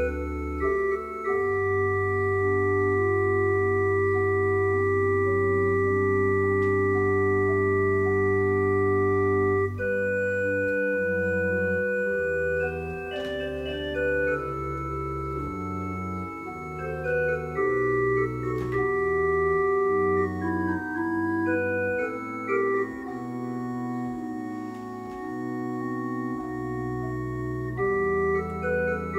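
Church organ playing: a long sustained chord with a deep bass for about the first ten seconds, then a slower-moving passage of changing chords over a bass line.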